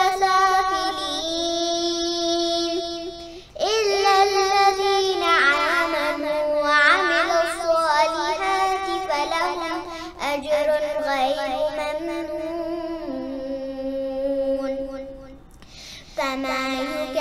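A young girl's voice chanting Quranic recitation in Arabic, melodic with long held notes. It pauses briefly about three and a half seconds in and again near the end.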